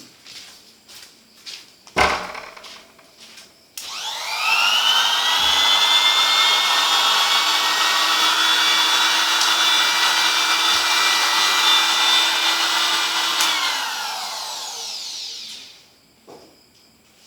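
Bitec trimmer (small electric wood router) motor switched on, spinning up with a rising whine, running steadily at full speed for about nine seconds, then switched off and winding down with a falling whine. A single sharp knock comes about two seconds in, before it starts.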